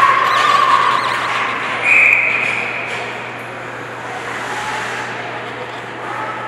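Ice hockey rink ambience during play, with two long held high-pitched calls in the first three seconds, a lower one and then a higher one, over a steady background hum.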